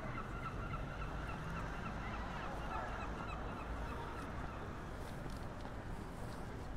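City street ambience: a steady low rumble, with a run of short, high, chattering calls over the first three seconds or so.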